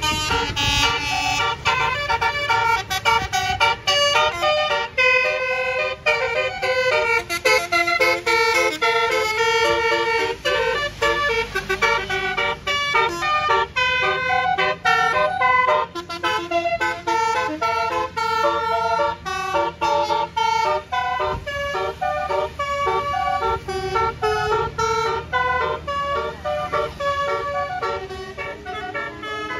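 Basuri telolet horn on a bus, a set of trumpet air horns playing a fast melody of short notes over a low engine rumble; it gets quieter near the end.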